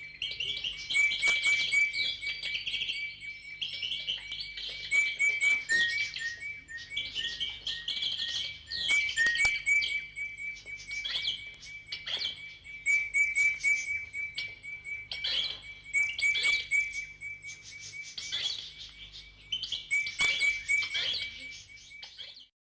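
Many birds chirping and calling at once in a dense chorus, with one bird repeating a short note over and over; the sound cuts off abruptly near the end.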